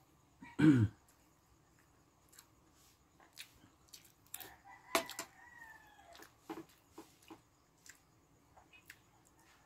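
Spoon and fork clinking and scraping against a ceramic plate during eating, as scattered light clicks. About half a second in there is one short loud call that drops steeply in pitch.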